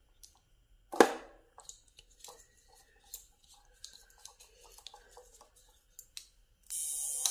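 Alligator clips and wires being handled and connected, with scattered small clicks and a sharp thump about a second in. Near the end a loud, steady hissing buzz starts as the repaired electric fish-shocker inverter is switched on for its test.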